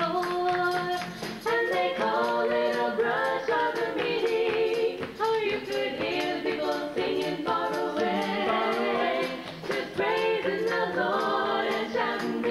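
A small group of young women singing in close harmony into microphones, in continuous phrases, with an acoustic guitar accompanying.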